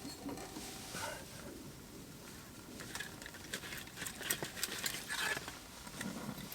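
Small pieces of wood and twigs knocking and clattering as they are placed into a wood-burning stove's firebox, a scatter of light irregular clicks and taps.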